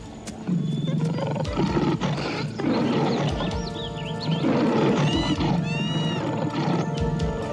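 Lion roaring several times over music.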